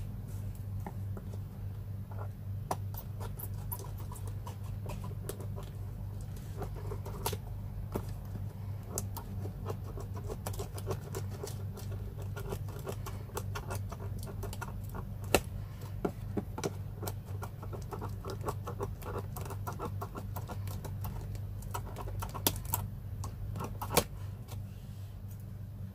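Scissors snipping and a cardboard laptop box being handled as it is opened: many scattered small clicks and scrapes, a few sharper ones, over a steady low hum.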